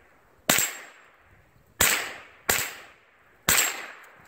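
Semi-automatic AR-style rifle fired four times at an uneven pace, each shot followed by a short echoing tail.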